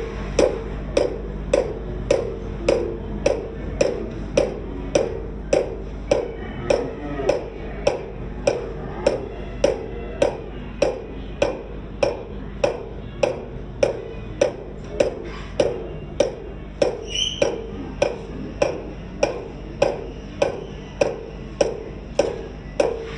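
A lathe running with a motorcycle spoke wheel turning in it, under a continuous low hum. A sharp tick repeats evenly, about two and a half times a second.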